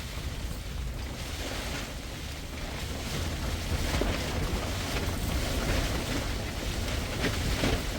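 Stormy wind gusting and rumbling against the microphone, getting louder about three seconds in.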